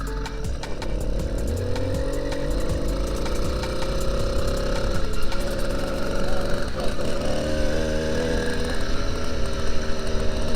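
Small 80cc motorized-bicycle engine running under load, its exhaust baffle cut back; the pitch climbs over the first few seconds as it accelerates, holds, dips briefly about seven seconds in, then rises again.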